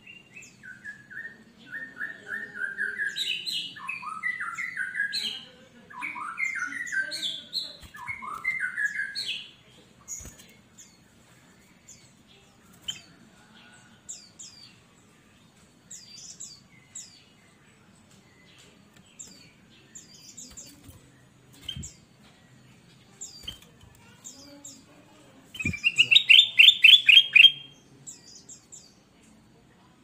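Ruby-throated bulbul (kutilang emas) singing: a run of loud warbling phrases that swoop up and down for about the first ten seconds, then only faint, short high chirps, and a loud rapid trilled chatter near the end.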